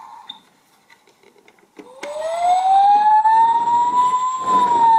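Toy ambulance's electronic siren: after a click about two seconds in, a single wailing tone rises slowly for about two and a half seconds, then starts to fall near the end. A brief rumble comes in near the end.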